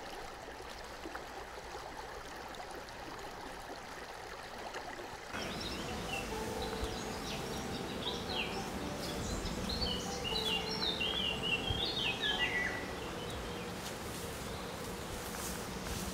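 Outdoor ambience: steady background noise, changing about five seconds in, then small birds chirping in quick series of short notes for several seconds.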